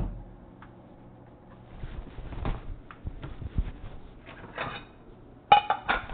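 Household clatter: a sharp knock, then scattered clicks and thumps, and a quick run of loud, ringing knocks near the end, like dishes or hard objects being handled.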